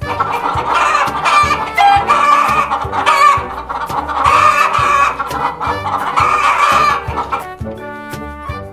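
Hens clucking repeatedly, stopping about a second before the end, over background music with a steady beat.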